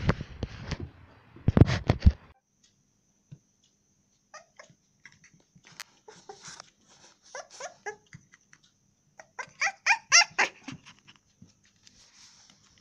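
Black puppy whining to be fussed over: a string of short, high-pitched whimpers that start about four seconds in and are loudest about ten seconds in. Before that, about two seconds of loud close bumps and rustling.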